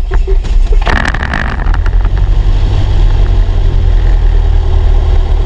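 Piper Warrior's Lycoming O-320 four-cylinder engine running just after start: uneven for the first couple of seconds, then settling into a steady idle.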